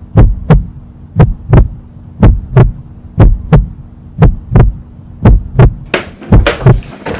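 Heartbeat sound effect: paired lub-dub thumps about once a second, over a steady low hum.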